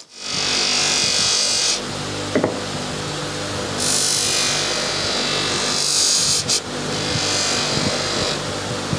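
Bench polisher running with a steady motor hum while an amber plastic lamp lens is pressed against its spinning buffing wheel, giving a hissing rub in three stretches of about two seconds each. The old plastic lens is being polished.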